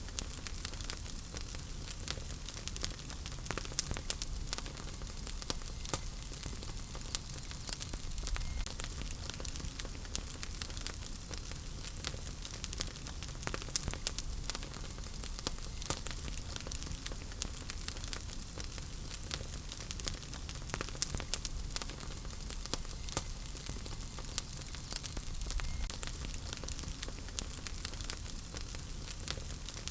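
Wood fire burning in a fireplace: a steady low rumble and hiss with frequent sharp, irregular crackles and pops from the logs.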